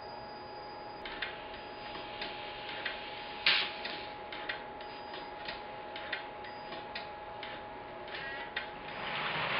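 Hornby live-steam OO-scale Mallard model locomotive ticking and clicking irregularly, about one or two clicks a second, with one louder click about three and a half seconds in. A hiss swells near the end.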